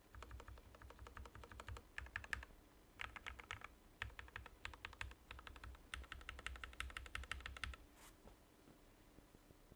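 Typing on a Royal Kludge RK84 mechanical keyboard with Gateron milky black linear switches: quick runs of keystrokes with short gaps between them. The typing stops after a last single keystroke about eight seconds in.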